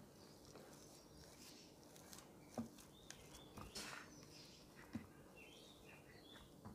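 Near silence, with a few faint taps and scrapes of a silicone spatula against a glass dish as mashed potato stuffing is spread flat.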